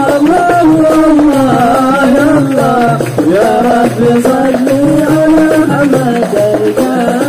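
Middle Eastern-style devotional music: a winding melody, sung or played, over marawis hand drums beating a steady repeating rhythm.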